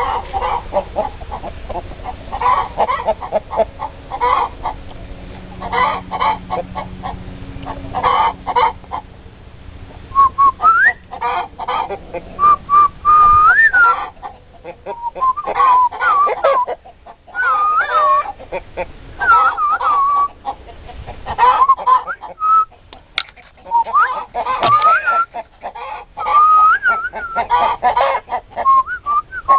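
Chickens clucking in short repeated bursts; from about ten seconds in, higher, drawn-out wavering calls join the clucking.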